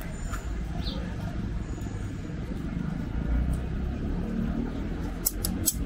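Large scissors cutting through a sheet of leather, with a few sharp snips, two of them close together near the end, over a steady low background rumble.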